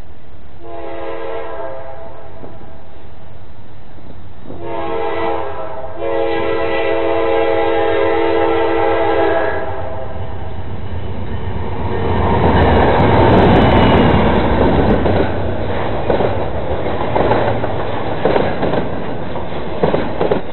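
Approaching Norfolk Southern freight locomotive sounds its multi-note air horn in three blasts, the last held about three and a half seconds. Then a rumble builds as the train reaches the crossing, followed by clickety-clack and irregular heavy knocks as the wheels of intermodal flatcars carrying trailers run over the rails.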